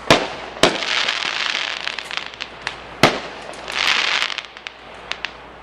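Fireworks going off: a few sharp bangs, the loudest about three seconds in, with crackling stretches after them and a few scattered pops near the end.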